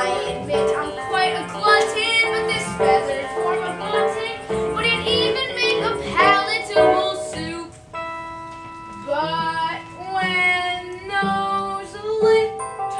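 Children's chorus singing a stage-musical number over instrumental accompaniment, with a short lull about eight seconds in.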